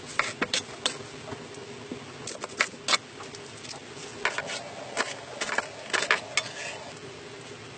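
An onion being cut and peeled by hand: its dry papery skin crackles and a knife clicks through it and against a wooden board, in a scatter of short, sharp crackles and clicks. A wood fire burns close by.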